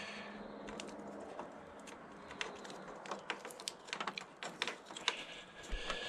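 Small, irregular plastic clicks and taps as wire connectors and cables are handled and pushed together by hand, growing more frequent after about two seconds.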